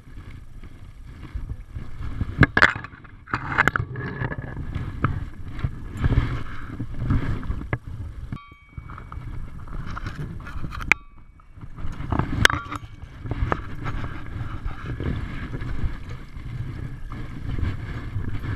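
Wind rumbling on the camera's microphone, with scattered knocks and scrapes of camera handling and movement over streamside rocks.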